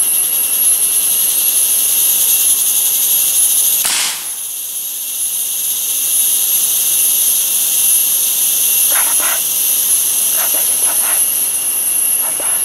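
A single sharp air-rifle shot about four seconds in, over a loud steady high drone of jungle insects. The insect chorus dips briefly after the shot, and a few faint short sounds come near the end.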